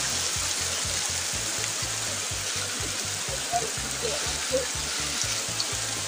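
Steady hiss of flowing spring water, with faint distant voices near the middle.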